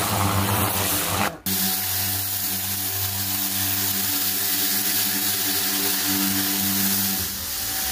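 Karcher K3.91 electric pressure washer running: the motor and pump hum steadily under the hiss of the water jet from the wand. The sound cuts out briefly about a second and a half in, and near the end it dips and the hum's pitch bends.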